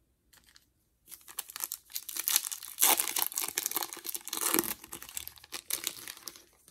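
Foil wrapper of a Topps Opening Day baseball card pack being torn open and crinkled by hand: a dense crackling starts about a second in and is loudest midway.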